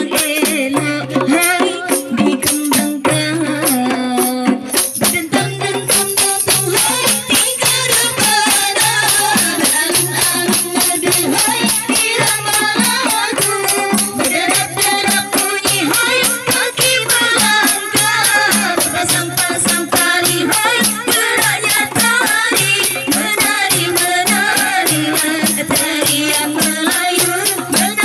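Rebana ensemble: several frame drums beaten by hand in a fast steady rhythm, some fitted with small metal jingles that shake continuously, with a woman's voice singing over them through a microphone.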